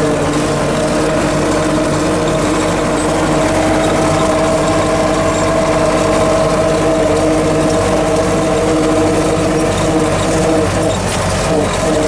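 MTZ-50 tractor's four-cylinder diesel engine running steadily as the tractor drives along, heard from inside the cab, with a brief dip in level near the end.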